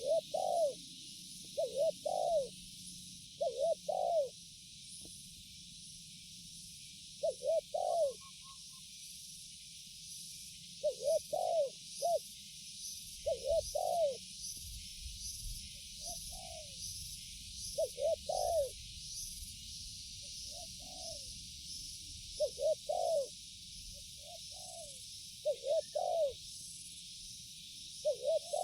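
Spotted dove (tekukur) cooing: short phrases of two or three low, hollow coos, repeated about every two seconds, some phrases fainter than others. A steady high-pitched buzzing hiss runs underneath.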